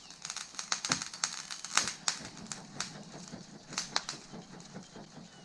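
Wood fire crackling under a barbecue grill: irregular sharp pops and snaps over a faint hiss.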